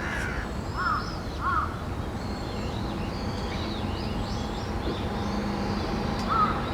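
Crows cawing, a few short calls near the start and again near the end, with smaller birds chirping at a higher pitch throughout.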